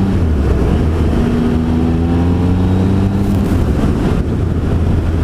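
Motorcycle engine pulling under acceleration, its pitch rising steadily and dropping at gear changes shortly after the start and about three seconds in. It runs over a steady rush of wind noise on a helmet-mounted lavalier microphone with the helmet's air vent open.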